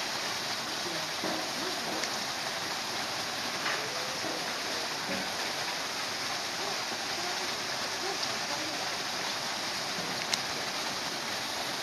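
Steady rushing noise like falling water, with one sharp click about ten seconds in.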